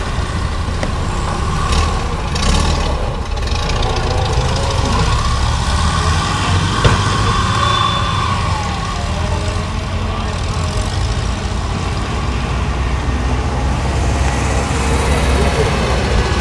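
Air-cooled flat-four engines of WWII Volkswagen Schwimmwagen and Kübelwagen running, a steady low rumble, with one sharp click about seven seconds in.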